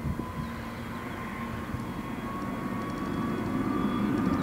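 Twin-engine jet airliner's engines running on the runway: a steady whine that climbs slightly in pitch over a low rumble, growing louder.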